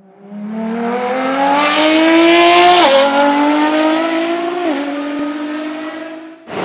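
Car engine accelerating hard through the gears, its pitch climbing steadily, with two upshifts about three and four and a half seconds in, each a quick drop in pitch. It fades in at the start and dies away just before the end.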